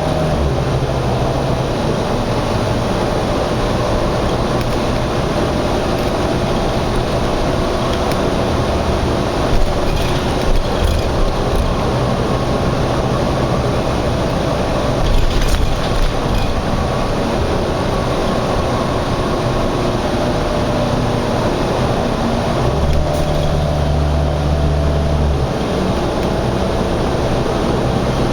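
Steady highway traffic noise, with a heavy engine's low hum swelling for a couple of seconds near the end and a few short knocks around the middle.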